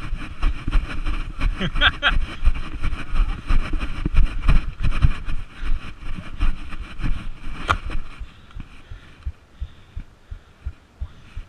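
Irregular low thumping and rumble from a body-worn camera jolted as its wearer moves on the field: footfalls and mount knocks carried straight into the microphone.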